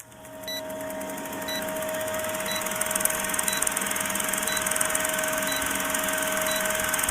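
A steady hiss with a low hum, slowly growing louder, with a short high beep about once a second.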